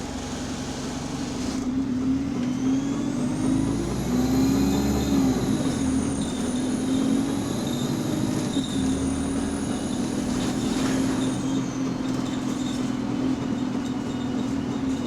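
A bus's engine and drivetrain running while the bus is on the move, heard from inside, with a high whine rising and falling in pitch between about two and twelve seconds in. Under it runs a rapid repetitive knocking that quickens with engine speed, which the rider takes for a definite fault.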